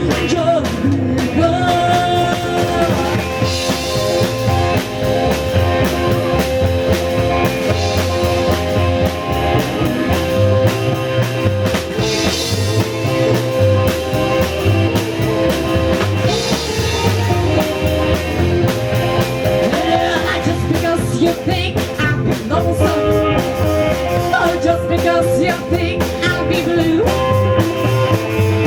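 Rock-and-roll band music with drum kit and guitar over a steady, even beat.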